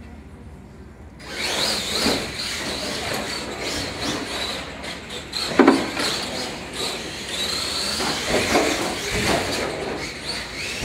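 Radio-controlled monster trucks racing: a whine from the electric motors that rises and falls with the throttle, with the tyres scrubbing on the hard floor. It starts suddenly about a second in, and there is a sharp knock near the middle, as a truck strikes something.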